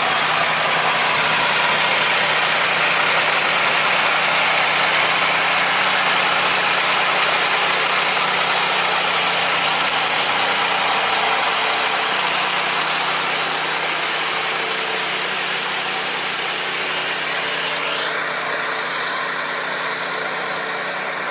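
A farm machine's engine idling steadily under a broad hiss, easing slightly quieter over the second half.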